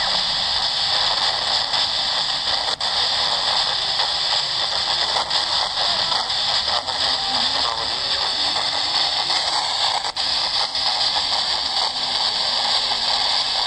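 XHDATA portable radio's speaker giving loud, steady FM static hiss with a few faint clicks while it is being tuned: the radio has not locked onto the weak station, and its fiddly tuning keeps it between stations.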